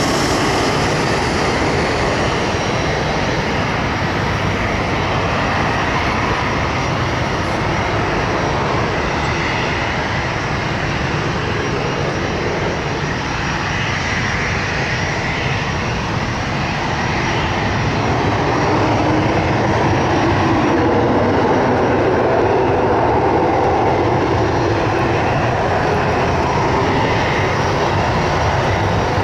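Boeing 767-300's twin jet engines running at low taxi power: a steady rumble with a thin high whine above it, swelling a little now and then.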